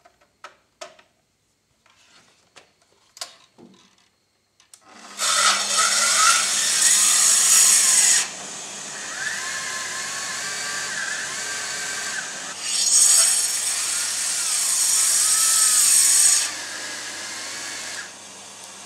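A Festool TS 55 REQ plunge-cut track saw is cutting through a wooden plank. A few light clicks and taps come first. About five seconds in, the saw starts, and it runs loudest in two stretches of about three seconds each, with its pitch wavering under load.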